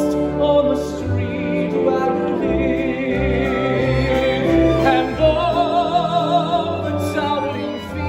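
A man singing long held notes with a wide vibrato, two of them about two seconds each, over a full theatre orchestra accompaniment.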